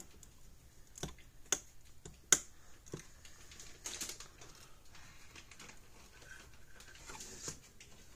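Scattered small clicks and taps of hands handling wires and a screwdriver inside a plastic fence energizer case, with the sharpest click a little over two seconds in and light rustling later.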